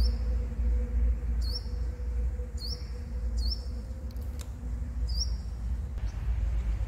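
A sunbird calling: five short, high notes, each a quick downward slur into a brief held tone, about a second apart. Under them runs a steady low rumble.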